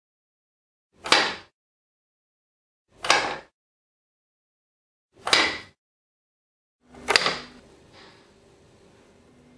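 Four short, even strokes about two seconds apart, a sawing sound for the automaton theatre's shipwright figures. After about seven seconds the gaps fill with faint room tone and a low hum.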